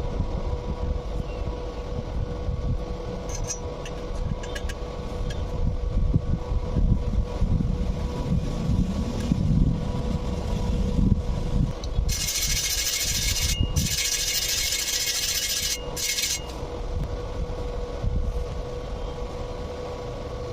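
Stick welding: a steady electrical hum under rough scraping and rubbing, then about four seconds past the middle a loud, even hissing crackle typical of an arc burning, broken off twice for a moment.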